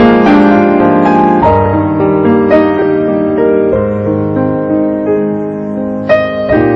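Slow piano music: single notes and chords ringing on and overlapping, with a firmer chord struck about six seconds in.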